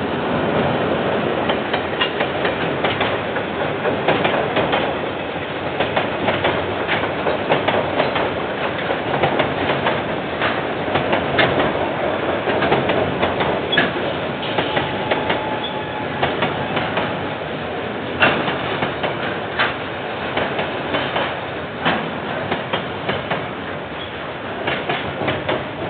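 KiwiRail train rolling past, a steady rumble of wagons with many sharp clicks and knocks as the wheels cross rail joints. Picked up by a security camera's microphone, so the sound is dull and lacks the highs.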